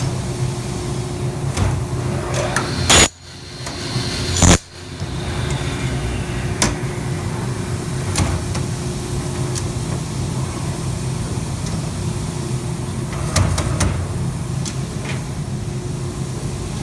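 Spacer bender machine running with a steady hum, broken by two loud bangs about three and four and a half seconds in, followed by lighter clicks and knocks later on. The bangs match the occasional thumping/banging noise this machine is known to make.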